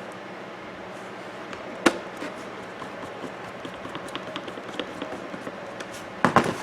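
Scattered small clicks and knocks of hands and tools working on the clock, over a steady background hiss. There is one sharp click about two seconds in and a cluster of knocks near the end.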